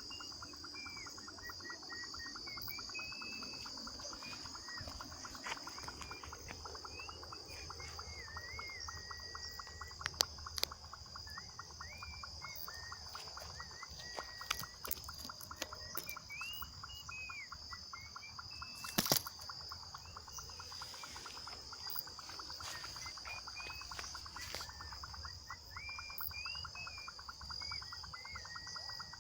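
Dusk chorus of insects: a steady high-pitched buzz and a fast, even pulsing trill, with a bird repeating short rising-and-falling call notes. A few sharp clicks cut through, the loudest about nineteen seconds in.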